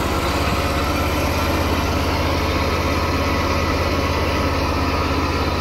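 John Deere Z920A zero-turn mower's engine idling steadily, a low even hum with a fast regular pulse.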